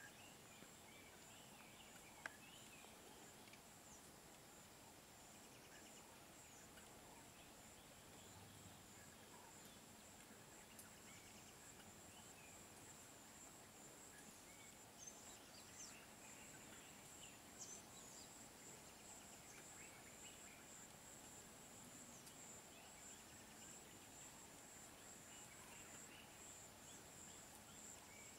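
Faint outdoor bush ambience: a steady high-pitched insect drone, with scattered faint bird chirps and a few soft clicks.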